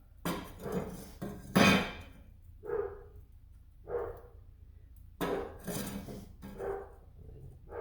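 A dog barking, a series of short barks with brief pauses between them.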